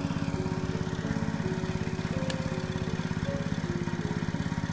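A small engine running steadily with a fast, even pulse, under background music whose melody moves in short held notes.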